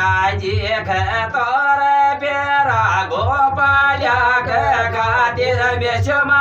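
A man singing solo into a microphone, with long held notes that slide up and down in pitch, over a steady low beat of about four pulses a second.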